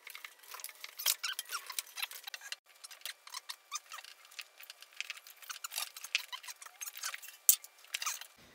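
Irregular clicks, taps and short scrapes of metal hand tools and ignition parts being worked by hand in the engine bay of a Chevy 305 small-block during a tune-up, with one sharper click near the end.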